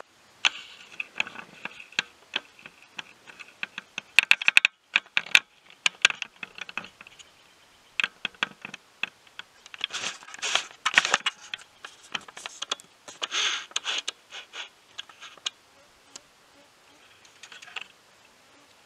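Footsteps crunching through dry leaf litter and twigs: irregular sharp clicks and crackles, with louder bunches of crunching about a third and two-thirds of the way through.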